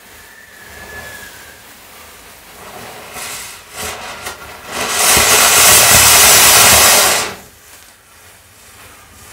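Chain of matchsticks burning, with match heads catching and fizzing as the flame runs along it. A few short flares come about three to four seconds in. About five seconds in a loud hiss starts, lasts about two seconds and cuts off suddenly.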